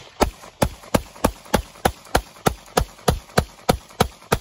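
FN FNS-40 pistol (.40 S&W) fired in rapid, evenly paced single shots, about three a second, some fourteen in a row. The firing stops near the end.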